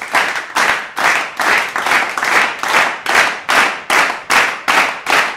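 Steady rhythmic clapping in time, about two and a half claps a second.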